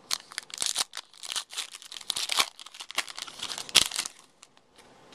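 A trading-card pack's wrapper being torn open and crinkled by hand, a quick run of crackling rustles that stops about four seconds in.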